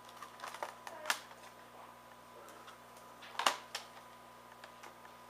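Scattered plastic clicks and knocks from a Dell Studio 1555 laptop keyboard being handled and lifted out of its bay. The loudest knock comes about three and a half seconds in.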